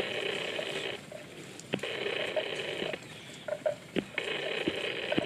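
Water buffalo grazing, tearing and cropping grass with a few sharp crunches. Over it, an unseen source gives three buzzing bursts of about a second each, with short gaps between them.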